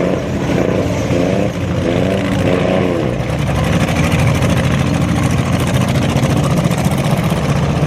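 Engines of compact demolition-derby cars running loudly, with rising and falling revs for the first three seconds. After that they settle into a dense, steady low rumble.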